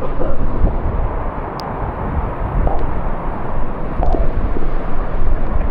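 Steady, loud rushing roar of a waterfall, heaviest in the low range.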